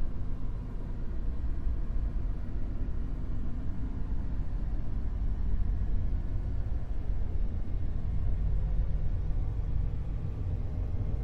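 Dark noise: a steady, deep rumbling hiss with most of its weight in the lows, like brown noise, gently wavering in level.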